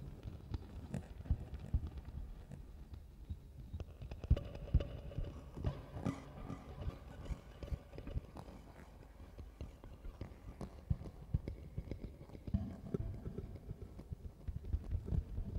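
Sparse, irregular low thumps and soft clicks, with faint sustained tones drifting in during the middle.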